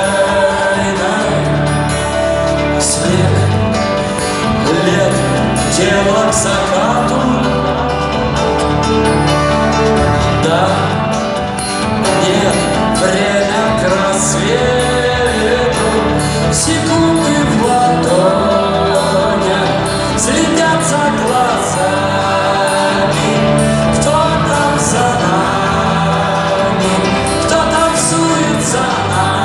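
Live rock band playing a song, with singing voices over guitars, bass and drums, loud and steady throughout.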